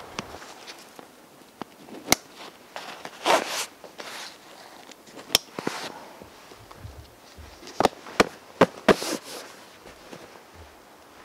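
Plastic side-release buckles on a Savotta backpack snapping shut with sharp clicks, one about two seconds in, another in the middle and four in quick succession near the end, between short swishes of nylon webbing straps being pulled tight.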